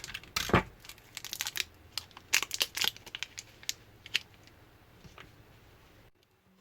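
Crinkling, rustling handling noises with irregular sharp clicks and one heavier thump under a second in, as two equal portions of M-seal epoxy putty are taken and handled. The noises thin out after about four and a half seconds and cut off abruptly about six seconds in.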